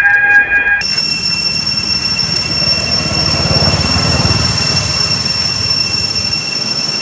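Steady, loud, high-pitched drone of a cicada chorus in the trees, with a low rumble beneath. About a second in, the drone switches abruptly to a higher, shriller pitch.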